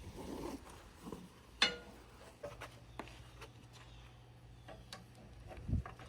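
Metal hydraulic hose fittings being handled, clicking and clinking. There is one sharp ringing clink about one and a half seconds in, a few lighter ticks afterwards, and a dull thump near the end.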